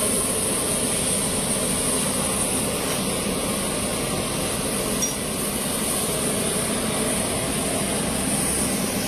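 Steady jet engine noise from a military transport aircraft on the apron, an even roar with a high whine over it.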